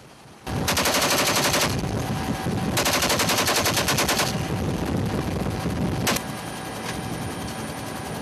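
Helicopter door-mounted machine gun firing in two bursts of about a second each, then a short third burst, over the steady running of the helicopter.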